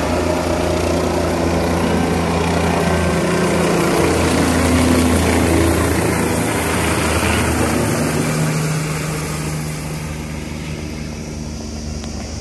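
Helicopter rotor and engine running loud as the aircraft climbs away overhead after take-off, loudest about five seconds in, then fading over the last few seconds.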